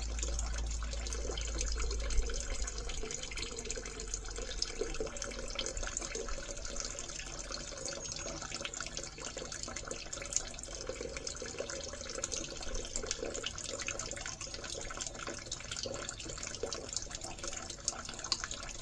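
Toilet flush water running out of a sewer line into a bucket in a wet well, a steady trickle with small irregular splashes: the tail end of the flush still draining through the line.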